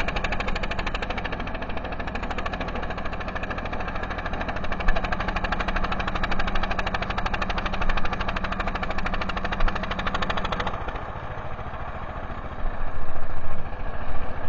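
A small engine running steadily with a rapid, even chugging pulse; about eleven seconds in its steady low tone drops away and the sound changes.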